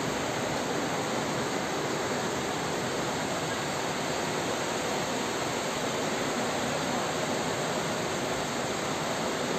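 A river in flood, overflowing and rushing down a town street: a steady, unbroken rush of moving water.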